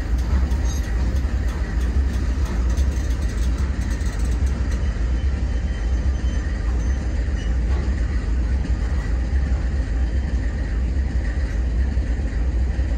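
Intermodal freight train's well cars rolling slowly past, a steady low rumble of wheels on the rails.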